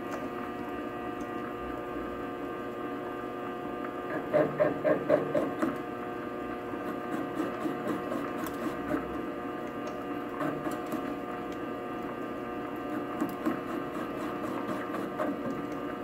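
Small metal lathe running with a steady motor and gear hum while the cutting tool trims down the outer edge of a washer. The cut comes through in louder, pulsing spells about four seconds in and again in shorter bursts later.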